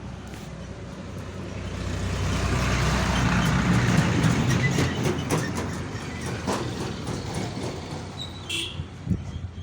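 A motor vehicle's engine passes by, swelling to its loudest about four seconds in and then fading away, with a few scattered knocks and clicks over it.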